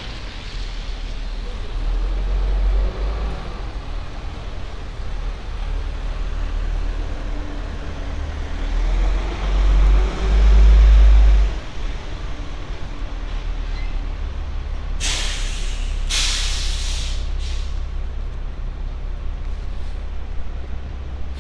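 Traffic on a wet city street: a steady hiss of tyres on wet road under a low rumble that swells loudest about ten seconds in. About fifteen seconds in come three sharp, loud hisses in quick succession.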